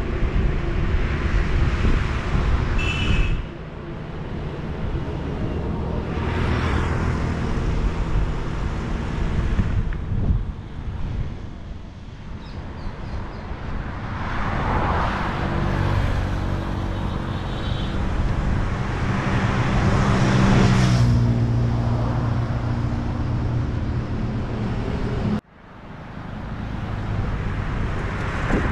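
Highway road traffic: vehicles pass one after another in several swells, and the engine drone of a larger vehicle builds and passes near the middle. The sound drops out suddenly near the end, then returns.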